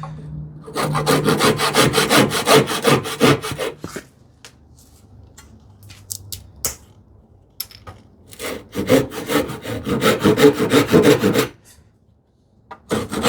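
Hand saw cutting through a small piece of wood in two runs of quick back-and-forth strokes, one starting about a second in and the other near the middle, with a few light clicks and knocks in the pause between. This is the waste being trimmed off a hand-made wooden turn button.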